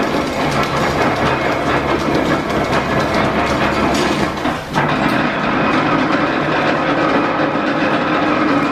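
1897 Whitcomb eight-foot metal planer running off a belt-driven line shaft, a steady loud clatter of gearing and belts as the table travels. There is a short lull about halfway through, where the table changes direction.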